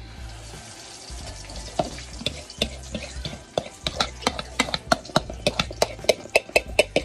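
Salmon patty mixture being stirred and scraped in a plastic mixing bowl. It is a run of sharp, irregular knocks and scrapes that grows denser and louder from about two seconds in, over a faint steady hiss.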